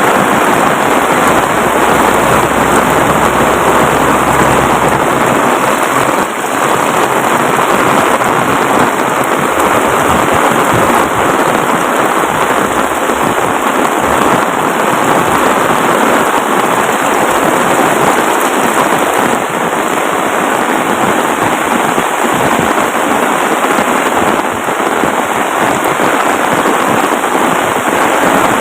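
Heavy tropical rain pouring down steadily and loudly, a dense hiss of drops hitting surfaces.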